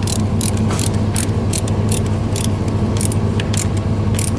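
Ratcheting nut driver clicking steadily, about two to three clicks a second, as a clamp screw on a well pump's PVC drop pipe is tightened. A steady low engine hum runs underneath.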